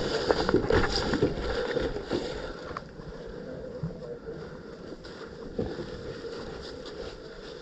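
Rustling and handling noise with wind on the microphone, busy with small clicks and knocks for the first three seconds, then settling into a quieter, steady hiss.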